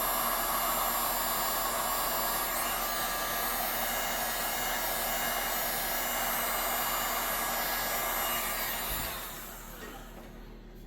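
Electric heat gun blowing steadily, as used to shrink heat-shrink tubing over wiring. It is switched off about nine seconds in and its fan winds down.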